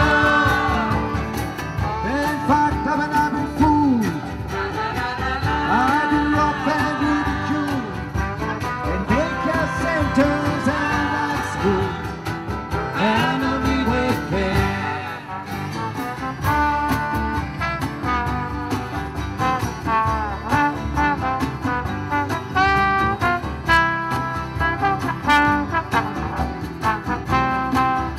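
Live acoustic street band playing an instrumental break: strummed acoustic guitars and mandolin over a steady beat, with trumpet and trombone lines sliding in the first half and quick repeated notes in the second half.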